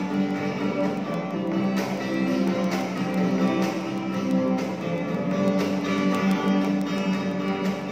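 Acoustic guitar played solo: chords strummed and picked at a steady pace, the notes ringing on between strokes.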